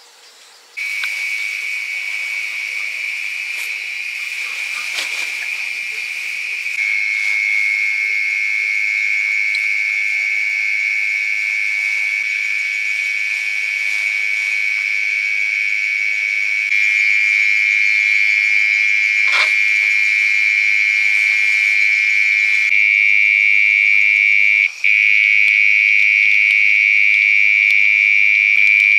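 Insects droning in a steady, high-pitched whine that starts abruptly about a second in and grows louder in a few steps, with one brief break near the end.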